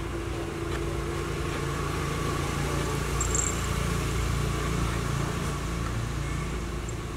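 Steady low engine rumble, swelling a little in the middle and easing off again.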